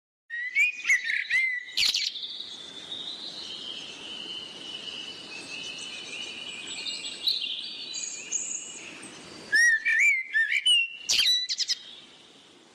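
Birds chirping and singing: many quick, whistled notes sliding up and down, busiest near the start and again about ten seconds in, then fading away near the end.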